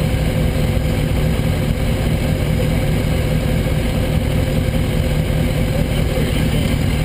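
2006 Kawasaki ZX-6R 636's inline-four engine idling steadily, heard close up through a camera mounted on the bike.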